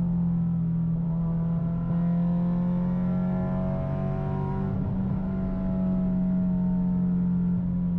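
Acura RSX Type S's K20Z1 four-cylinder engine through a loud aftermarket exhaust, running at steady revs under way with a constant engine note whose pitch only drifts slightly.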